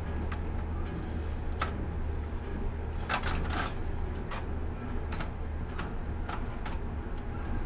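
Steady low hum of a ship-to-shore container crane's machinery heard from the operator's cab, with irregular sharp clicks and ticks and a quick cluster of them about three seconds in.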